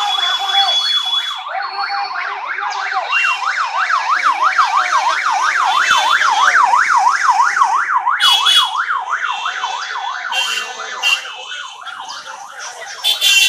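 An electronic siren horn on one of the passing vehicles yelps in a fast, even rise and fall, about four times a second, fading out around three-quarters of the way through. Short beeps from horns come in after it, near the end.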